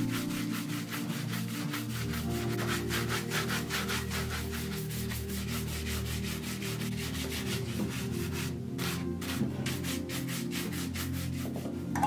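Horsehair shoe brush buffed in quick back-and-forth strokes over a polished black leather shoe, bringing the polish up to a shine; the strokes thin out near the end. Soft background music runs underneath.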